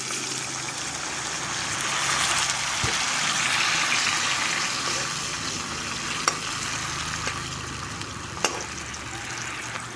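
Potato pieces sizzling as they fry in oil in a steel wok, with a steady hiss. A steel ladle stirs them, clicking lightly against the wok three times.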